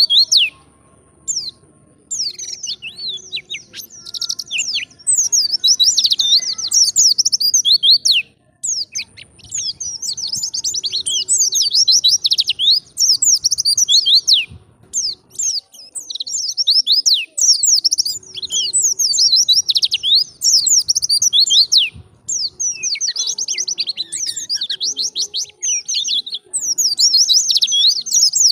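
White-eye (pleci) singing vigorously in long runs of fast, high twittering notes, broken by short pauses every few seconds.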